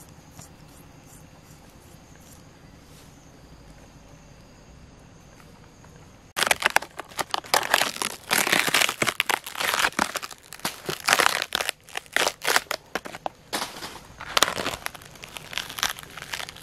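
Dry, rotten wood of a palm trunk being torn and broken apart by hand. Dense crackling and crunching of splintering fibres starts suddenly about six seconds in and goes on in bursts, after a faint steady background.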